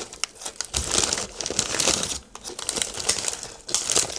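Flamin' Hot Ruffles chip bag crinkling as it is handled close to the microphone, an irregular run of crackles that comes mostly in two spells.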